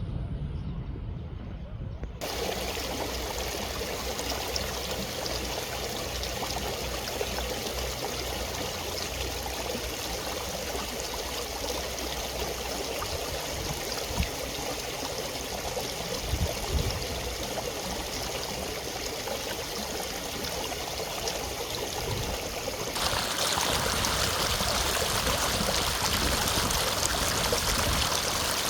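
A low rumble for about two seconds, then a stream of water flowing and splashing steadily. It grows louder and brighter about 23 seconds in.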